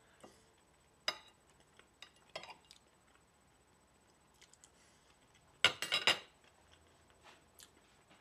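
Cutlery clinking against a plate while eating: single clinks about one and two and a half seconds in, then a louder quick run of clinks about two-thirds of the way through.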